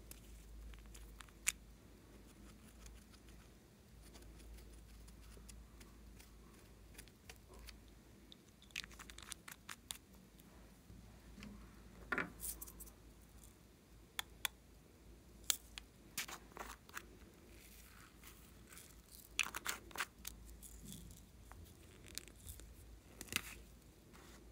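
Small plastic containers handled and opened by hand: a glitter tube and little emoji-ball capsules. Scattered sharp clicks and taps come singly and in short clusters, several of them close together in the second half.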